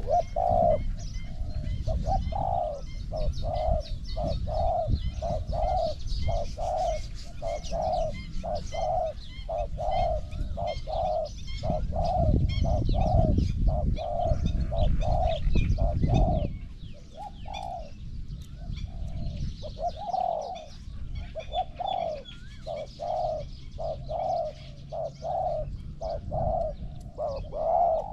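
Spotted doves cooing over and over in an even series, about one and a half coos a second. A low rumble lies under the first half and fades out about halfway through.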